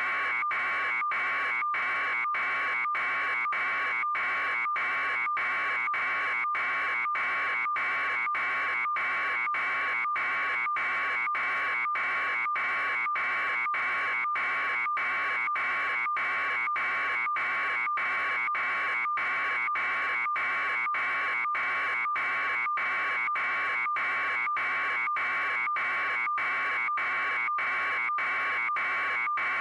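Electronic buzzing tone pulsing about twice a second at an even, unchanging level.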